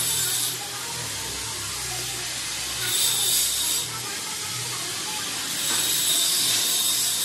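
Electric arc welding on steel grill bars: the crackling hiss of the arc, coming in short bursts with a fainter hiss between them.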